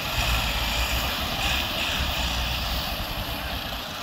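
Tractor diesel engines running hard under load as they haul a trolley heavily loaded with sugarcane. The sound is a steady, deep rumble.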